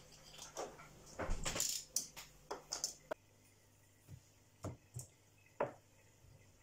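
Scratching and rustling of thick leather being worked with a small hand tool, with a few light clicks. About three seconds in it goes quieter and a handful of sharp metallic clicks follow as a long steel ruler is laid and shifted on the leather-covered table.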